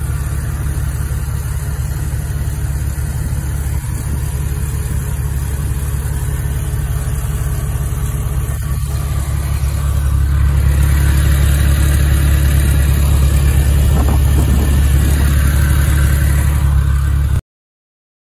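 Porsche 996 Carrera's water-cooled flat-six engine idling steadily, close to the engine bay, with a light tick that the owner puts down to sticky hydraulic lifters. About ten seconds in it grows louder and brighter, and it cuts off suddenly near the end.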